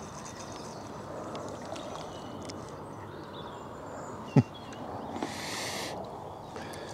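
Quiet lakeside ambience: a steady soft wash with faint bird calls. A single sharp, low thump comes about four seconds in, followed by a brief hiss about a second later.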